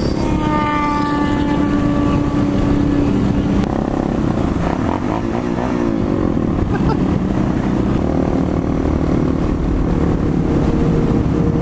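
Suzuki DR650's single-cylinder engine running at highway cruising speed, with heavy wind noise on the microphone. Its pitch eases down a little over the first few seconds, then holds steady, with the engines of the other motorcycles in the group mixed in around the middle.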